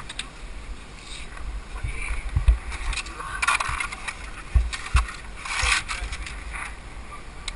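Rustling and handling noise at a helmet-mounted camera, with a few dull knocks about two and a half, four and a half and five seconds in.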